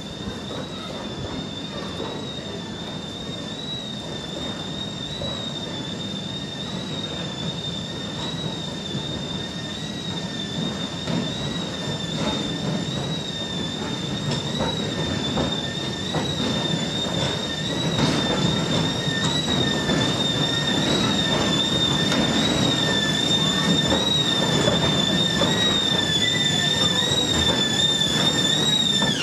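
Steam-hauled train of open wagons rolling slowly over curved dockside track, its wheels squealing in a high-pitched, slightly wavering whine. Beneath it is a low rumble that grows louder as the train comes closer.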